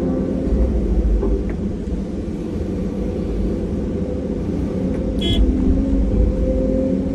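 Large diesel engine of heavy earthmoving machinery running steadily with a low rumble. About five seconds in, a brief high-pitched squeal sounds over it.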